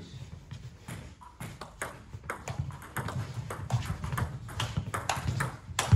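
Table tennis rally: the ball clicking sharply off the bats and the table, sparse at first and then in quick back-and-forth from about two seconds in, with one louder knock near the end.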